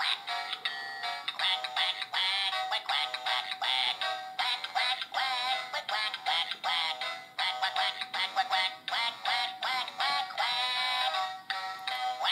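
Battery-powered plush duck toy chattering in a high-pitched, squeaky voice: quick sing-song syllables, running on without pause.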